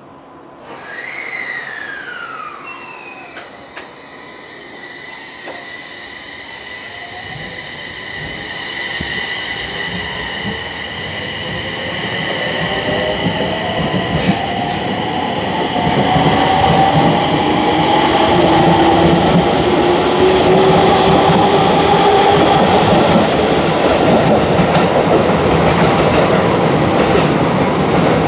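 JR East E721-series electric train pulling out and running past. A burst of hiss with a falling tone about a second in is followed by a growing rumble of wheels on rail, with clickety-clack and a rising whine from the traction motors as it accelerates. The sound builds to loud and stays there.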